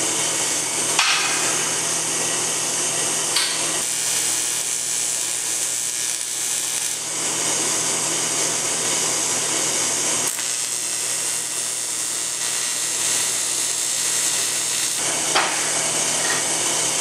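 Aluminium TIG welding: a steady arc hiss over a low electrical hum, with a few sharp clicks.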